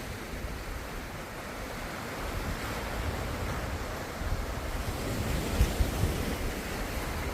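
Ocean surf: a steady wash of breaking waves with a low rumble, swelling a little about five seconds in.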